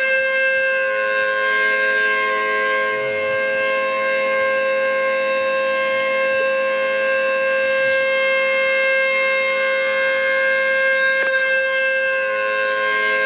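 Outdoor tornado warning siren sounding a steady tone held at full pitch, several pitches together, with no rise or fall.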